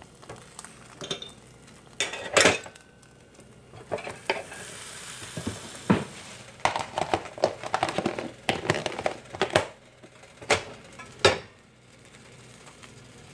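Kitchen clatter: scattered clinks and knocks of utensils and dishes, with food sizzling on a hot grill for a couple of seconds about a third of the way in.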